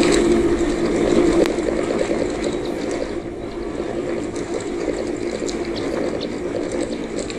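Bicycle rolling downhill on a concrete paver road: steady rumble of the tyres over the block joints, with rattling from the bike and light scattered clicks.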